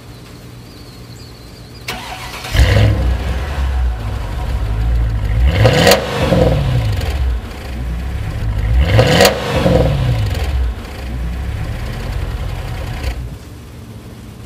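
Mercedes SL500 V8 exhaust with the resonators replaced by a straight pipe and the stock mufflers kept: the engine starts up about two and a half seconds in, is revved twice, each rev rising and falling away, then settles and drops away about thirteen seconds in. With the resonators deleted it has a throaty growl when given gas.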